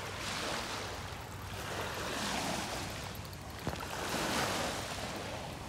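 Small waves breaking and washing up a pebbly shoreline, the wash swelling and fading about every two seconds, with one sharp click a little past halfway.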